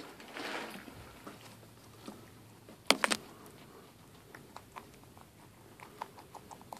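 Guinea pig chewing vegetables at close range, a run of small quick chewing clicks at about three to four a second in the second half. A brief rustle comes near the start, and two sharp knocks about three seconds in are the loudest sounds.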